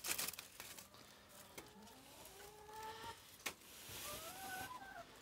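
Hens giving drawn-out, slightly rising calls, twice. A crackle of dry leaves and twigs at the start and a single sharp click about three and a half seconds in.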